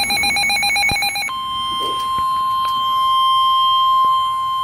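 NOAA Weather Radio emergency alert signal. It opens on a harsh, rapidly warbling electronic data burst, the SAME header that encodes the alert. About a second in, this switches to the steady 1050 Hz warning alarm tone that precedes a new warning.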